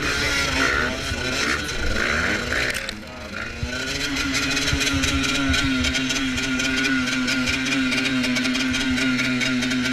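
Enduro motorcycle engine under load: the revs rise and fall for about three seconds, then are held steady at high revs.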